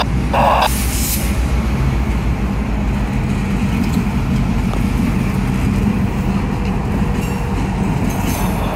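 EMD GP38 diesel-electric locomotive, its 16-cylinder two-stroke engine running with a steady low rumble as it slowly pulls a string of tank cars past. A brief hiss comes about a second in.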